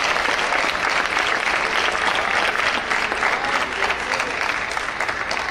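Spectators applauding, many hands clapping in a dense patter with a few voices mixed in, easing off slightly near the end.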